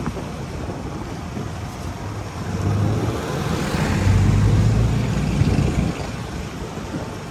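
A motor vehicle engine running on the move, over a steady rush of road noise. The engine note grows louder about two and a half seconds in and eases off again about six seconds in.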